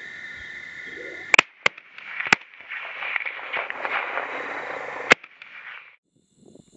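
Crickets trilling steadily, cut off by the sharp crack of a suppressed .308 rifle shot about a second and a half in, with three more sharp cracks over the next few seconds. Between them, a few seconds of dense scuffling noise as the sounder of wild hogs scatters.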